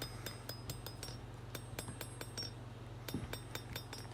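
Hand hammer striking hot knife steel on an old anvil with worn corners: quick, light, ringing blows, about three a second in short runs with brief pauses between, over a steady low hum.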